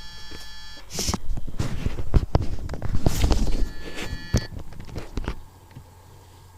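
Lenovo G505S laptop giving off short stretches of high-pitched electronic whine, mixed with a run of sharp clicks and rustling handling noise that stops about five seconds in, leaving a faint low hum. The owner describes this as a fault that is now nonstop.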